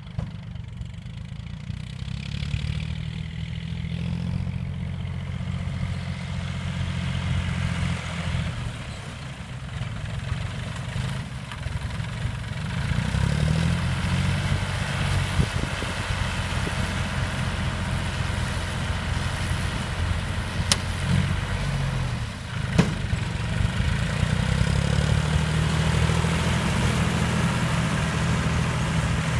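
John Deere 5204 tractor's diesel engine running steadily while it tows a straw baler, its pitch rising and falling slightly. A sharp click about three quarters of the way through.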